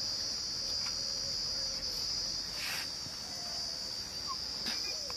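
Insects shrilling in one steady, high continuous tone, with a few faint bird chirps and a brief swish about halfway through.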